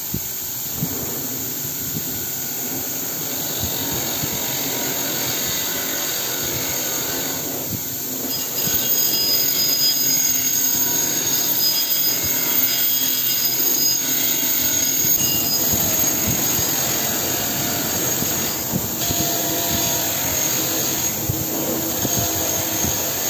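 Bench grinder's wire wheel spinning, with a rusty steel axe head held against it to strip the rust: a steady whir, louder from about eight seconds in.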